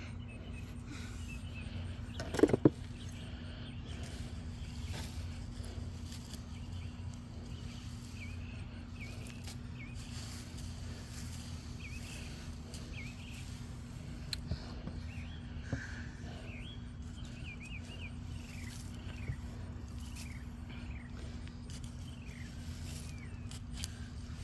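Outdoor ambience: a steady low hum, with small birds chirping in short, repeated calls through most of it. A single loud thump comes about two and a half seconds in, and a few light clicks follow later.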